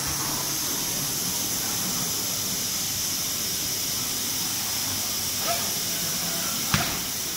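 Steady hiss of background noise in a large exhibition hall, with a single sharp knock near the end.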